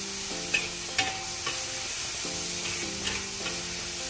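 Tofu and vegetables sizzling as they are stir-fried in a hot wok, with a metal spatula scraping and clicking against the wok now and then as it stirs in the freshly added soy and oyster sauce.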